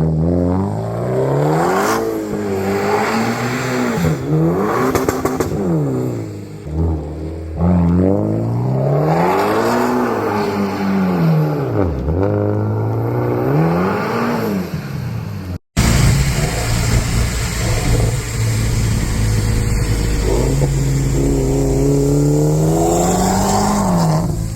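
Mitsubishi Lancer Evolution engine being revved over and over, its pitch climbing and falling in quick sweeps. After a short break about two-thirds in, it holds a steadier note over a heavy low rumble, then revs up again near the end.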